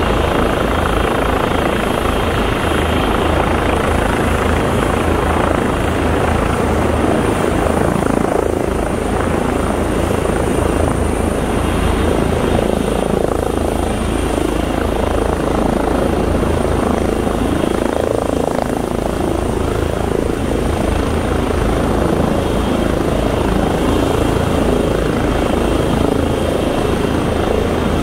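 Several Airbus EC135 and H145 police helicopters hovering and landing close by, one EC135 setting down on its skids: a loud, steady mass of rotor and turbine noise with a fast low rotor beat and a thin high whine above it.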